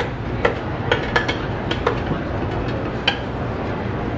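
A metal utensil clinking against a small stainless steel pot as it is worked: several sharp, irregular knocks in the first two seconds and one more about three seconds in, over a steady background hum.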